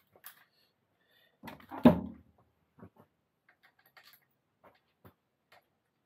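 A heavy clunk about two seconds in, amid scattered light clicks and taps: bike parts and hand tools being handled on the workbench.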